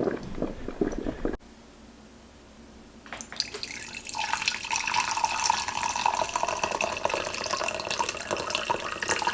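Tap water running into a sink, starting about three seconds in and running steadily.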